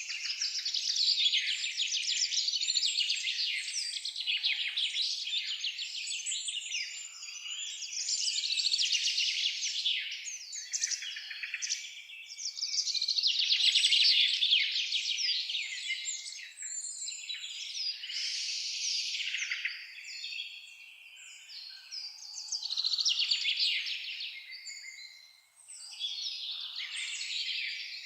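Forest birds singing in a dense, continuous chorus of high-pitched rapid trills and chirps, with a brief lull about two-thirds of the way through.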